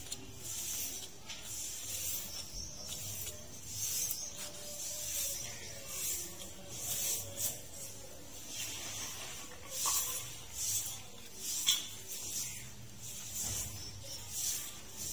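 Butchers' knives slicing and scraping along where the hide is being peeled from a goat carcass: irregular short hissing strokes, about one or two a second.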